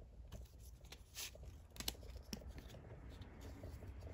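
Faint rustling of a stack of Pokémon trading cards being handled, with a few soft clicks as the cards shift in the hands.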